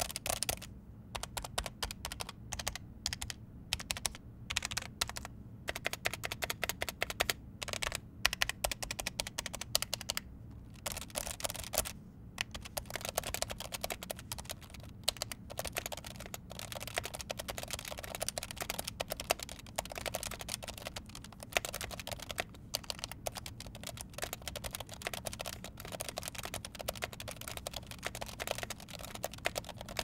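Typing on a Glorious GMMK 3 Pro keyboard with stock Lynx Hall effect switches in a polycarbonate plate: rapid runs of keystrokes with a few short pauses. The keys give a high-pitched clack, which the reviewer blames on the switches moving freely in the polycarbonate plate.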